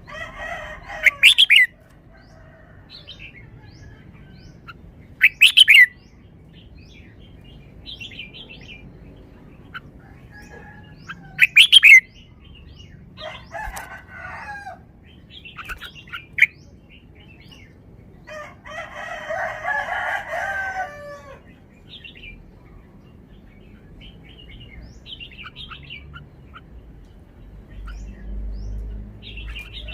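Red-whiskered bulbul singing: three loud, short phrases a few seconds apart, then longer warbling phrases, with fainter chirps in between.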